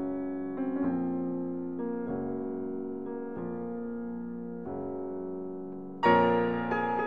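Background piano music: slow, sustained chords that change every second or so and fade between strikes, with a louder chord struck about six seconds in.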